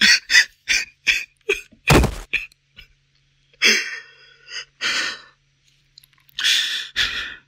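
A man's voice crying without words: quick sniffles and gasps, a heavier sob about two seconds in, then longer shaky breaths.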